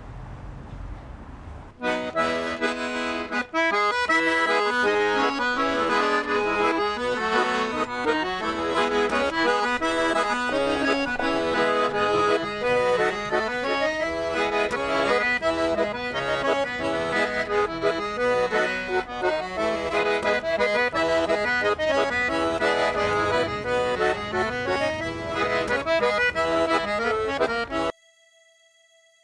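Accordion played solo, a tune with quick runs of notes over held chords. It starts abruptly about two seconds in, after low street rumble, and stops suddenly near the end.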